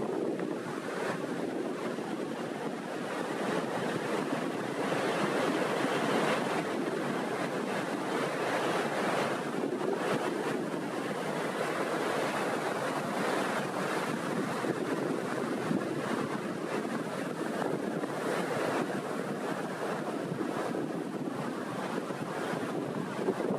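Small waves rolling in and breaking on the rocky shore, the surf swelling and easing every few seconds, with wind blowing on the microphone.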